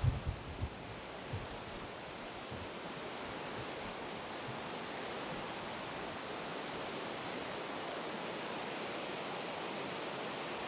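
Steady rush of flowing river water, with a few low thumps in the first second or so.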